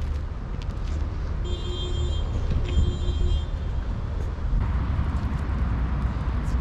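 Steady low outdoor rumble, with two steady high tones of about a second each near the middle. From about two-thirds of the way through, water poured from a plastic water bottle splashes onto dry ground, adding a hiss.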